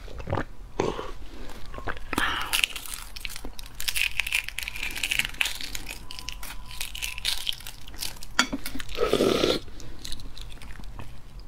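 Shell of a boiled half-developed chicken egg (活珠子) being cracked and peeled off by hand. It makes a long run of small crisp crackles as the shell breaks and the inner membrane tears away.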